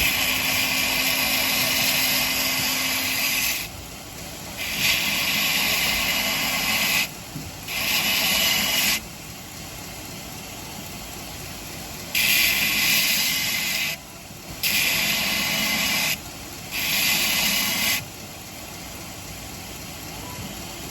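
Stainless steel cleaver blade ground against a running powered sharpening wheel in six separate passes, each a loud hiss, with the machine's motor humming steadily between them. The passes are grinding the edge until a burr forms all the way along it.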